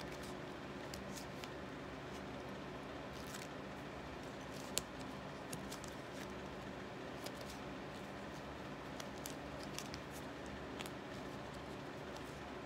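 Faint crinkles and clicks of a duct-tape hand wrap being wound around a hand, with one sharper click a little under five seconds in, over a steady low hum.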